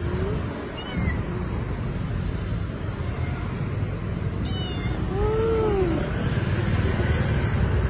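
Stray cat meowing: a short faint mew near the start, then one long meow that rises and falls about five seconds in, over a steady low background rumble.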